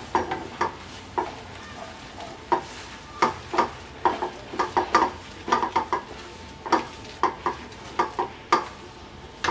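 Wooden spatula scraping and knocking against a stainless steel karahi in quick, irregular strokes, stirring rice flour into boiling water as it thickens into a stiff dough.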